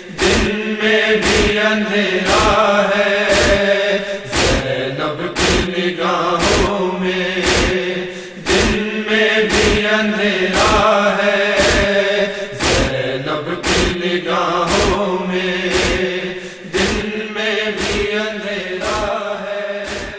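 Wordless chorus chanting the noha melody over a steady low drone, with sharp rhythmic matam (chest-beating) strokes about twice a second. It all fades out near the end.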